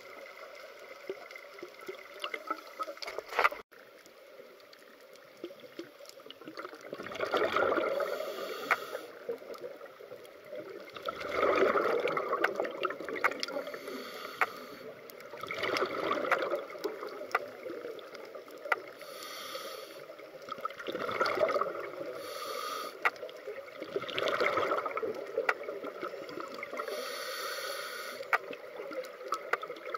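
Scuba breathing through a regulator underwater: swells of exhaled bubbles about every four seconds, with a hiss of inhalation between them and scattered small clicks.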